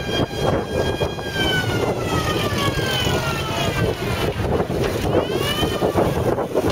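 WWII army trucks and a jeep driving past at low speed, engines running, with a gear whine that glides down in pitch about a second in and rises and falls again near the end.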